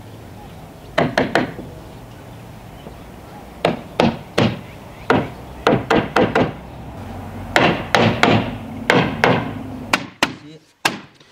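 Hammer blows on a wooden frame, knocking its mortise-and-tenon joints together. The blows come in quick groups of two to four, with short pauses between.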